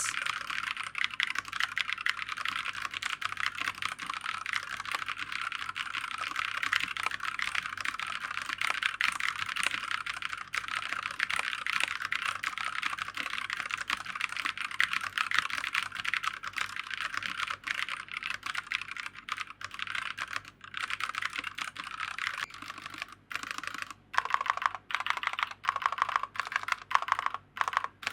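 Fast, continuous typing on a Fantech Atom MK876 TKL mechanical keyboard with unbranded red linear switches and ABS keycaps, with a few short pauses near the end. The keystrokes sound rough and loud for linear switches, which the owner thinks may come from the keycaps striking the keyboard's hard body.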